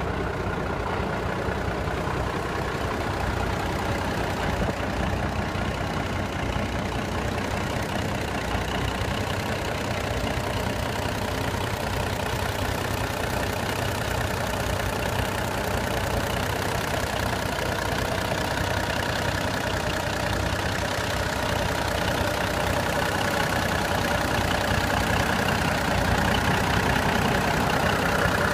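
Cummins 290 six-cylinder turbo diesel running at a steady idle, growing a little louder near the end.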